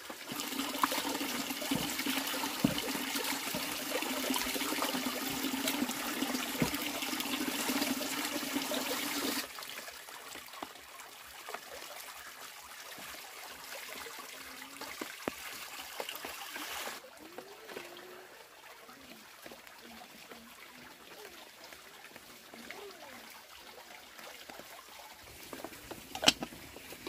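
Water from a hose pouring steadily into a plastic basin of water, with occasional knocks of a pot being washed. About nine seconds in it drops to a softer running and splashing, then quietens further; a single sharp metal knock, like a pot lid, comes near the end.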